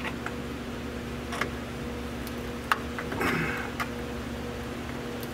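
A few scattered light clicks and taps, with a brief scrape a little after three seconds, from T-top trim pieces and clips being handled and pushed into place, over a steady low hum.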